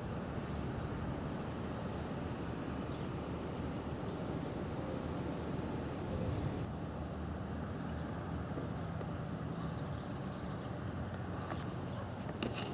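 Steady outdoor background rumble of traffic, with no siren sounding. Faint high chirps come through in the first half, and a few sharp clicks near the end.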